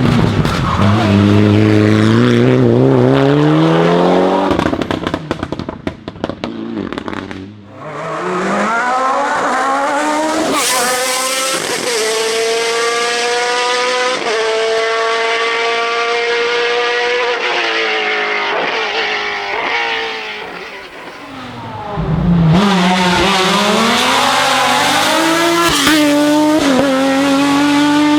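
Hill-climb race cars accelerating hard up the course, engine pitch climbing and dropping back at each gear change. The sound fades out about six seconds in, and another car comes up about eight seconds in. There is a brief lull again just past twenty seconds before the next car.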